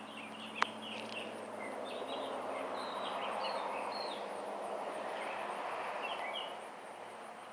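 Traffic noise from a passing vehicle swelling and fading over a few seconds, with small birds chirping briefly over it.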